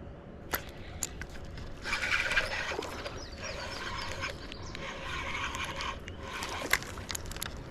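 Fishing reel being cranked to bring in a hooked fish: a scraping whir with small clicks, in three spells with short breaks between them.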